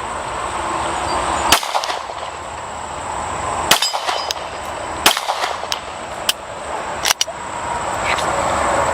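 Sharp metallic clangs and clacks, about five of them spaced a second or two apart, some ringing briefly.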